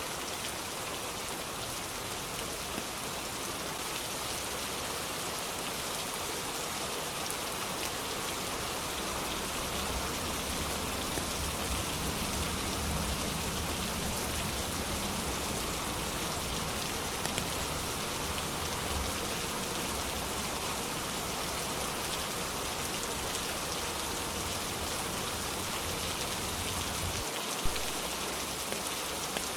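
Steady heavy rain falling, a dense even hiss of drops. Through the middle there is a low rumble that swells and fades, like distant thunder, and near the end there is a single sharp drip or tick.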